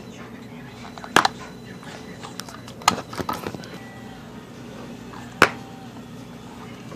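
Toy potato gun firing potato pellets at a cardboard box: three sharp pops, about a second in, near three seconds and about five and a half seconds in, with a few lighter clicks and taps after the second.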